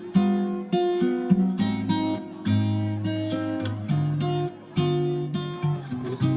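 Background music: acoustic guitar playing plucked notes and chords at a moderate pace.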